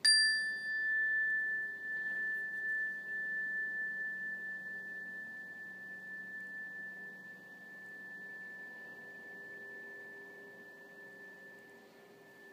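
Handheld single-tone chime struck once, then ringing one clear, high, pure tone that slowly fades, wavering slightly in loudness.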